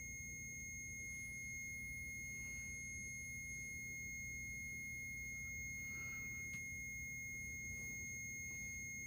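A steady high-pitched electronic tone held on one pitch, with fainter higher overtones, over a low steady hum.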